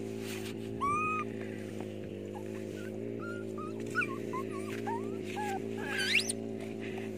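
Short, high whimpering squeaks from a puppy and a baby monkey play-wrestling, scattered through, with one sharp rising squeal about six seconds in. A steady low hum runs underneath.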